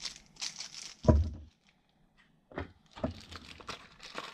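Handling noise from packing small gimbal accessories, held in a plastic bag, into a zippered carrying case: light clicks and rustles, with a dull thump about a second in and another knock about two and a half seconds in.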